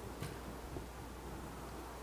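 Quiet room tone with a steady low hum, and one faint click about a quarter second in.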